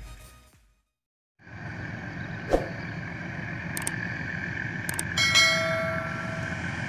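Intro music fading out, a moment of silence, then a distant freight train behind two GE U20C diesel-electric locomotives: a steady low rumble with a ringing tone over it and a few sharp clicks. About five seconds in, a brief, louder tone of several pitches sounds for about a second.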